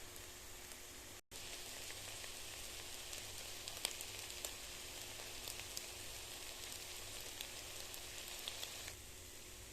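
Drumstick leaves and egg stir-frying in a hot pan: a steady sizzling hiss with scattered crackles and pops. It starts after a brief dropout about a second in and stops abruptly near the end.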